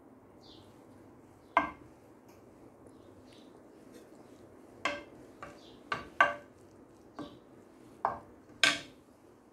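A wooden spoon knocking against the rim of a glass baking dish while spreading rice in it: about eight sharp clacks, each with a short ring, most of them bunched in the second half, the loudest near the end.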